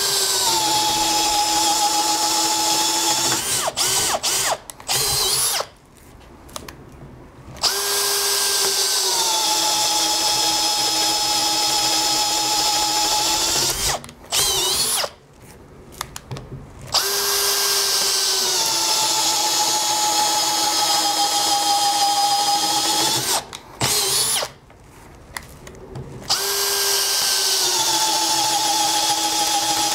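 Makita DHP481 18 V brushless hammer drill in first gear driving a 24 mm auger bit into hardwood, hole after hole. It runs under load in four long stretches, the motor whine dropping in pitch as each bore starts, with a few short bursts and brief pauses between them. It keeps running without topping out or cutting out from overheating.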